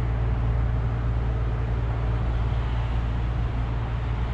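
Steady low rumble and hiss of road traffic, unbroken and without distinct events.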